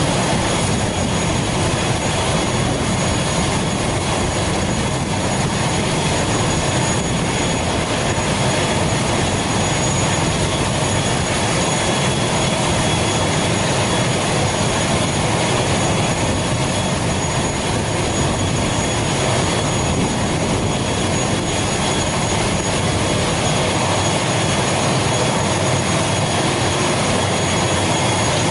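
ATR 72 turboprop's engine running steadily on the ground while the aircraft is parked: a loud, even rush with a thin, high, unchanging turbine whine over it.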